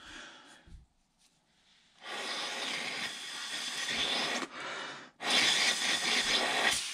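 A person blowing hard by mouth through a clear plastic tube pushed into a drilled hole in asphalt, clearing out drilling dust before a resin-set anchor goes in. Two long breathy blows, the first about two seconds in and the second, shorter one about five seconds in.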